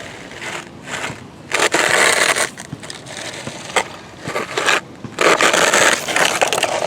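Toy construction truck scraping and pushing through sand, in rough gritty strokes. The two longest come about a second and a half in and about five seconds in, each lasting about a second.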